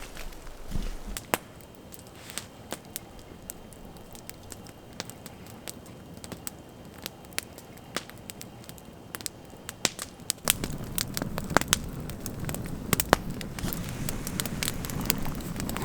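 Wood campfire crackling, with irregular sharp pops and snaps. About ten seconds in, a steadier low rushing noise comes in under the pops.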